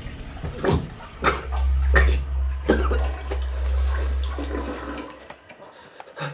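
Toilet flushing: water rushing and swirling into the bowl, fading out about five seconds in. Several short sharp sounds cut through it in the first three seconds.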